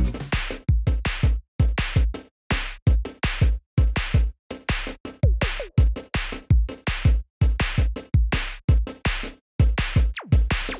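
Electronic music: a drum-machine beat of sharp hits, each with a deep thump underneath, about two to three a second, stopping dead for short breaks several times.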